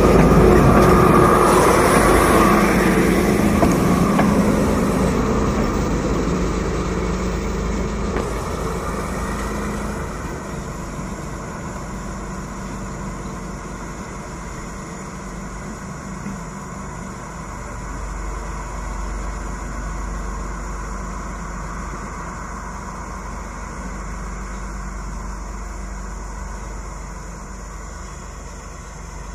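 D11H diesel locomotive passing close by. It is loud at first and fades steadily over about ten seconds as it moves away, leaving a lower, steady engine rumble.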